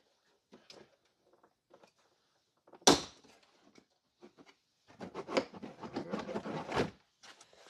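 Plastic cargo-area trim of a Jeep Cherokee being pried loose: a sharp snap about three seconds in as a trim clip pops free, then near the end a couple of seconds of plastic rattling and scraping as the panel is worked loose.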